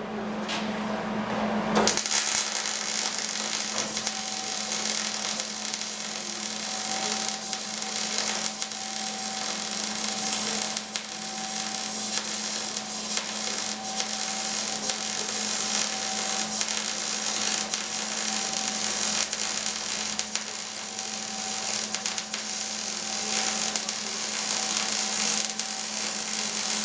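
MIG welding arc on sheet metal: a steady crackling sizzle, like bacon frying, that starts about two seconds in and runs on evenly, over a steady electrical hum.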